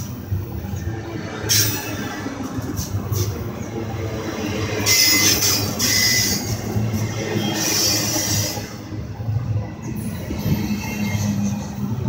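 Double-stack intermodal freight train's well cars rolling past, steel wheels rumbling steadily on the rails, with high wheel squeal that swells about five seconds in and again near eight seconds.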